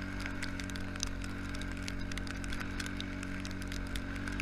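A vehicle engine running steadily with an even hum, with many small scattered clicks over it.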